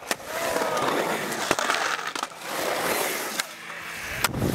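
Skateboard riding a concrete bowl: urethane wheels rolling on the concrete, with several sharp clacks of the board, the loudest near the end.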